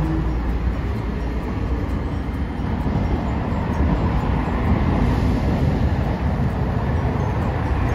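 Steady street traffic: cars passing on the road beside the tram track, with a Hiroden 3950-series streetcar approaching along the street-running line.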